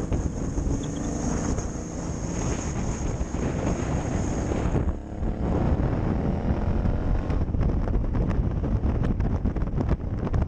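Motorcycle riding along at road speed, with heavy wind buffeting on the microphone over the engine. About halfway the sound dips briefly, then the engine note climbs as the bike accelerates.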